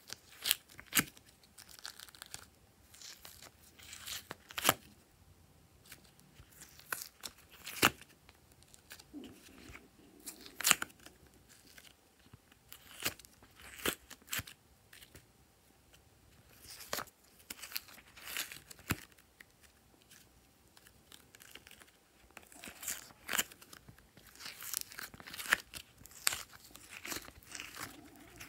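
Soft modelling clay being pressed and peeled out of a flexible silicone honeycomb mould: irregular sharp crackles and clicks with soft crinkling between them.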